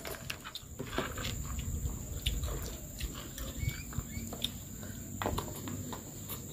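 A toddler chewing a mouthful of rice with her mouth open: soft wet smacking and small clicks of lips and tongue, close to the microphone.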